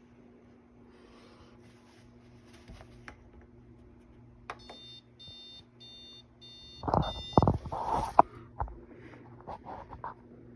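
Drip coffee maker giving a run of short electronic beeps, about two a second, the alert it sounds when it refuses to brew, which it blames on the drip stop. A few dull knocks from handling the machine follow near the end and are the loudest sounds.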